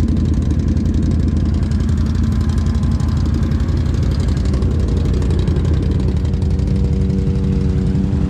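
A 1000cc Can-Am side-by-side's V-twin engine running on the trail with a loud, steady low rumble. From about five seconds in, the engine settles into a steady, even tone.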